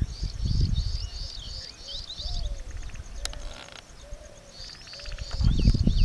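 Birds chirping in short repeated high notes and small rising calls over a steady high-pitched insect trill. A low rumble sits under the start and swells again near the end, and there is one sharp click about three seconds in.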